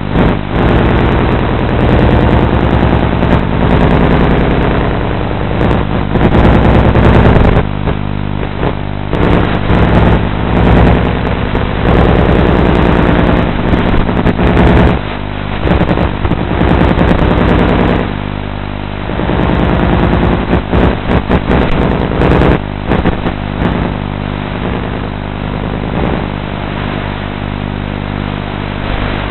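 Small electric RC aircraft's motor and propellers droning steadily, heard from its own onboard camera, with rough wind buffeting that swells and drops every few seconds.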